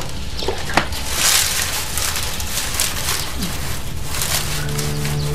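A few sharp clicks and irregular noisy hiss, then soft background music comes in about four and a half seconds in.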